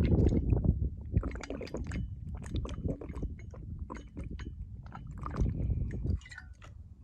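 A person drinking water from a bottle, with swallowing and the clicks of the bottle being handled close to the microphone.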